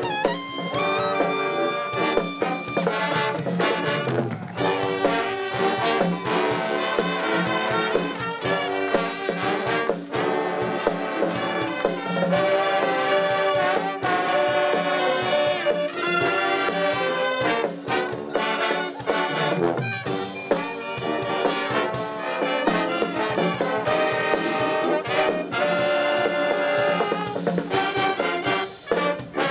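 College pep band playing loudly, trumpets and trombones to the fore, with sharp percussive hits throughout.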